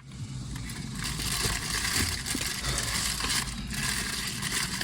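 Steady rushing noise with a low rumble underneath, rising in about half a second and then holding even.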